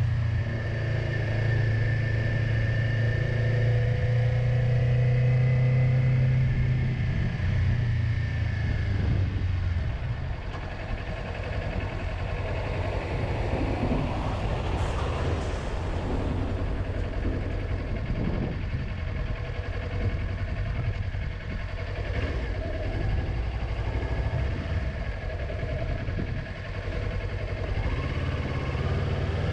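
Motorcycle engine running on the road: a steady engine note for about the first nine seconds, then lower and rougher as the bike slows in town traffic, with revs rising again near the end as it pulls away.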